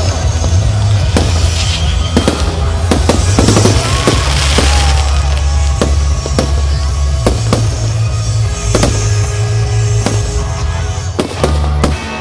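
Fireworks going off in a rapid string of sharp bangs and crackles, with a few short whistles, over loud music with a heavy bass.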